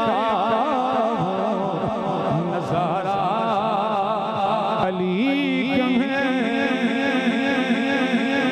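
A man's voice singing a devotional refrain in praise of Ali in long melismatic phrases with heavy vibrato. About five seconds in, the melody settles into lower, held notes that step from pitch to pitch.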